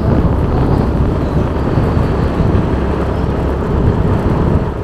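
Steady, loud rumble of a vehicle on the move along a road.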